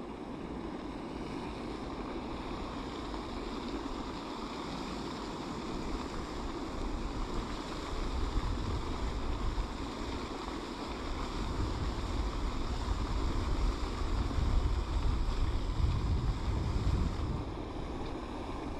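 Wind buffeting the microphone over a steady rush of water noise, the gusts stronger and more uneven in the second half.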